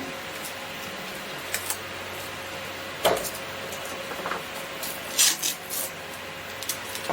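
Masking tape being handled and rubbed down onto a 3D-printed plastic sword blade: a single knock of the plastic part about three seconds in and short scratchy rubbing sounds around five seconds in, over a steady faint hum.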